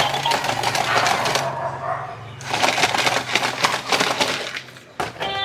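Clicking and crackling of small plastic toy parts being handled, with a quieter moment about two seconds in and another near the end.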